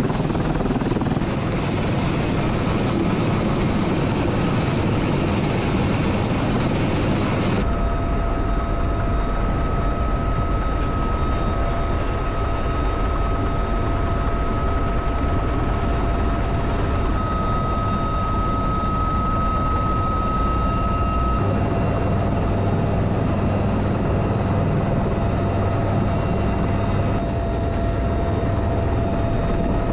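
UH-1Y Venom helicopter's twin turboshaft engines and rotor running steadily at close range, with a steady high turbine whine from about eight seconds in. The noise changes character abruptly several times.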